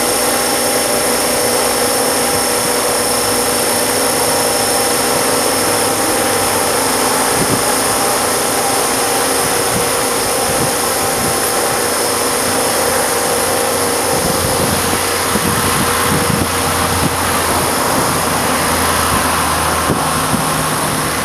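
Electric RC helicopter (Ikarus Eco 8 under a JetRanger scale body) in flight: a steady motor and gear whine over rotor noise, with gusty wind buffeting the microphone.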